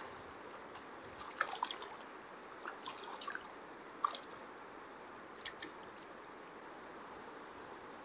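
Small splashes and drips at the river surface, a few short wet plips scattered over a steady hiss of flowing water.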